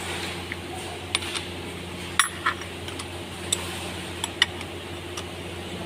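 Metal tools or parts clinking against each other seven or eight times at uneven intervals, over a steady low hum.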